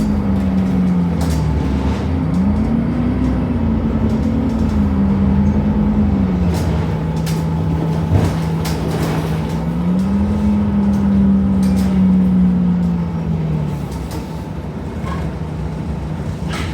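Temsa Avenue LF city bus with a DAF Euro 5 engine and ZF gearbox running on the move. A steady whine rises and falls in pitch, steps down several times and stops about 14 seconds in, over a low rumble with scattered clicks and rattles.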